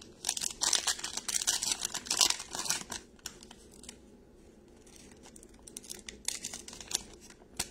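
Foil wrapper of a pack of football trading cards being torn open and crinkled, loudest and densest for the first three seconds, then softer rustling and crinkling with another short burst about six seconds in as the wrapper is pulled back.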